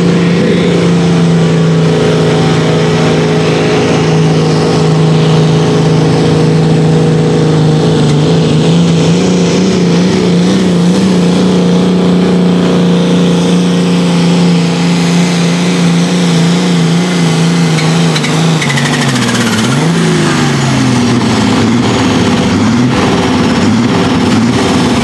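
Ford pulling tractor's diesel engine at full throttle, dragging a weight-transfer pulling sled: a loud, steady high-revving drone. About 19 seconds in its pitch falls sharply and then climbs back up.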